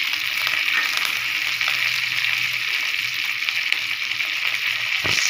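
Shallots, garlic cloves, curry leaves and green chillies sizzling steadily in hot oil in a kadai, with a fine crackle over the hiss.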